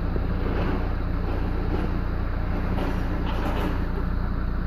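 A 1.9 TDI four-cylinder diesel idling steadily at about 900 rpm, heard from inside the car's cabin as a constant low rumble.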